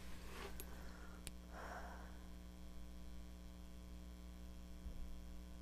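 Steady low electrical mains hum, with a faint click and then a soft breath or sniff about a second and a half in.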